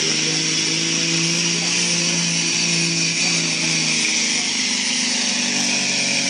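Semi truck's diesel engine running flat out under heavy load as it drags a pulling sled, a steady loud drone with a strong hiss over it. The pitch drops slightly about four seconds in as the load builds.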